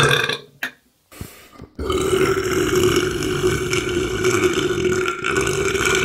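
Burps: a short burp ending just after the start, then, about two seconds in, a long, drawn-out belch of steady pitch that lasts about five seconds.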